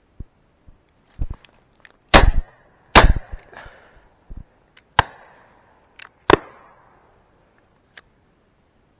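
Shotgun fire at flying ducks: four loud shots, the first two under a second apart as a double, then two more a couple of seconds later, each echoing briefly, with fainter distant shots between them.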